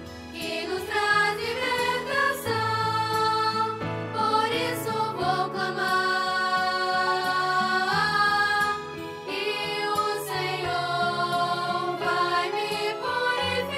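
A Christian worship song about the blood of Jesus, sung with instrumental accompaniment.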